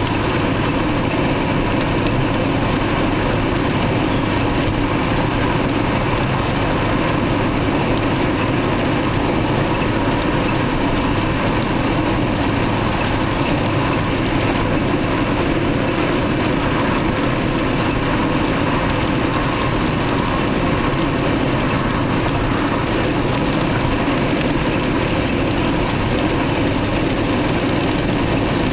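Steady road and engine noise inside the cabin of a car cruising on an expressway.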